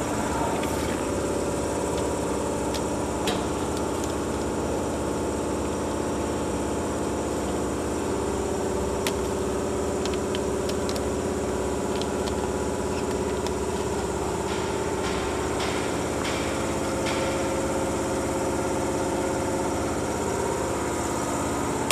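Multi-lane liquid sachet packing machine running: a steady mechanical hum with several constant tones and scattered short clicks.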